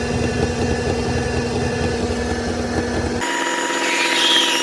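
Metal lathe running with a steady motor hum. About three seconds in the sound changes abruptly to a higher, thinner steady whine.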